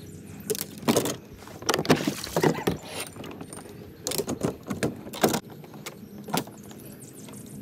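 Knocks and rattles from a Hobie Pro Angler fishing kayak and the gear on its deck, coming in irregular clusters of sharp clicks.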